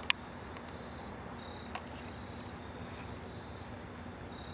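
A sharp click just after the start and a fainter one nearly two seconds in, over a steady low background hiss of quiet woods, with a faint high tone coming and going.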